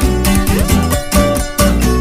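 Background music: a pop song with plucked guitar, heavy bass and a steady beat, no vocals.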